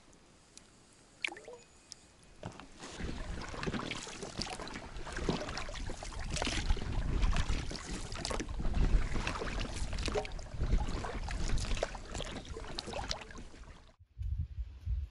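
Water splashing and sloshing around an inflatable boat under way, irregular and full of small slaps, with a low rumble. It starts about three seconds in and cuts off suddenly near the end.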